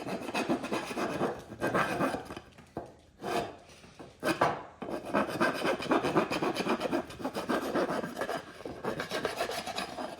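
Hand rasp scraping back and forth along the freshly cut edge of a wooden board to smooth it, in quick repeated strokes with short pauses about three and four seconds in.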